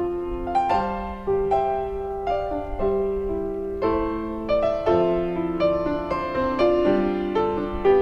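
Piano music: a steady run of notes and chords, about two new notes a second, each one ringing on into the next.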